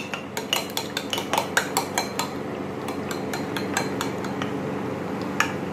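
Metal spoon beating raw egg in a ceramic bowl, clinking rapidly against the bowl about six times a second, then stopping about two seconds in, with only a few stray clinks after.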